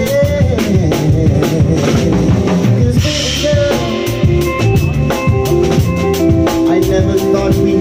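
Live band playing: a drum kit keeping a steady beat under electric bass and other sustained pitched instruments.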